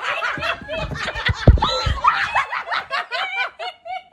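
Young women laughing together, several voices overlapping in rhythmic bursts of laughter. A few heavy low thumps come about a second and a half in.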